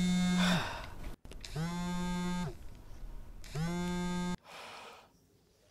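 Background song: a voice sliding up into three long held notes on the same pitch, about two seconds apart. The music cuts off abruptly about four seconds in.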